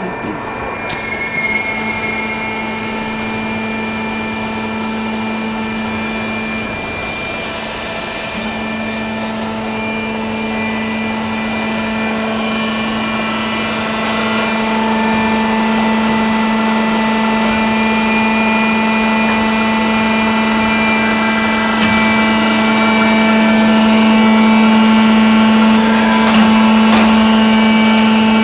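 Steel pipe induction heating and straightening line running: a steady hum and whine made of several fixed tones, growing gradually louder toward the end.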